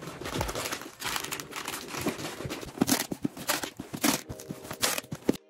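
Crinkling and rustling of plastic packaging and cardboard as a box is packed and handled, with irregular crackles and light knocks. It cuts off abruptly near the end.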